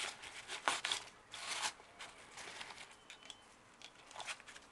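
Fabric bag being handled: a few short rustles and scrapes, the longest about one and a half seconds in.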